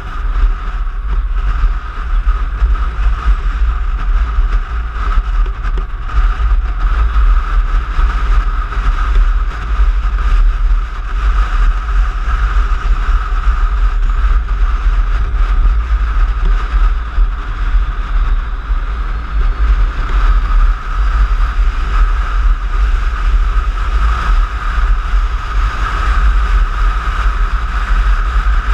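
Piaggio X9 scooter on the move, recorded on an action camera: heavy wind rumble on the microphone over a steady drone from the scooter.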